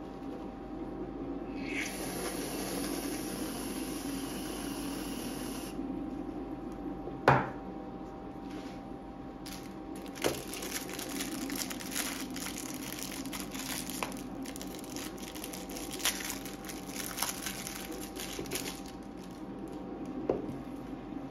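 An aerosol can of whipped cream sprays in a steady hiss for about four seconds, then there is a sharp knock. After that comes a long stretch of crackling and rustling from a foil wrapper being torn open, with a few small knocks. A faint steady hum runs underneath.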